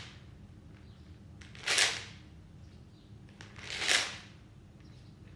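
Homemade shaker shaken slowly: two separate rattling shakes about two seconds apart.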